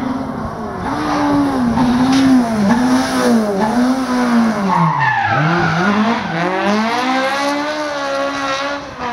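Rally car engine revving hard through the gears, its pitch rising and falling with each shift. The revs drop sharply about five seconds in, then climb again and hold.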